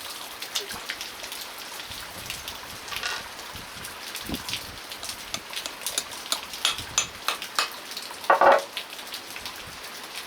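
Steady rain falling, with many scattered drop ticks. A brief louder rustle comes about eight seconds in.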